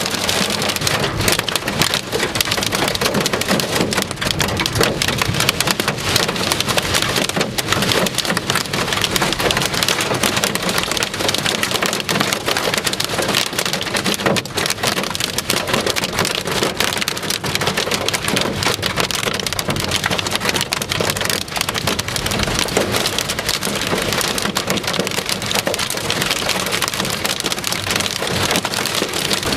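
Torrential rain mixed with hail pelting down in a severe thunderstorm: a loud, steady wash of rain thick with hard, rapid hits.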